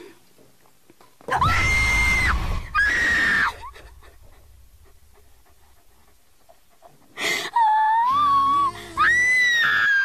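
A young woman screaming in fright at a fake spider, in two bouts: a high, held scream starting about a second in, then a second run of wavering screams near the end.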